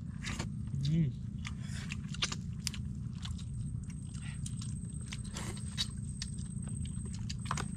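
Close-up mouth sounds of people eating fish with their hands: chewing and lip-smacking with many small wet clicks and crunches, and a short hummed "mm" about a second in, over a steady low background rumble.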